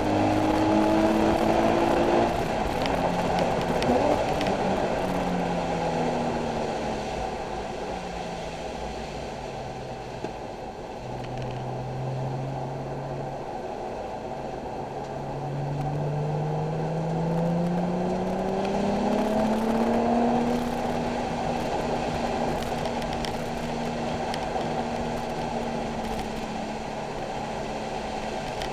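Nissan 370Z's 3.7-litre V6 heard from inside the cabin on track. The revs drop over the first ten seconds or so as the car slows, stay low for a few seconds, then climb again under acceleration and hold fairly steady near the end.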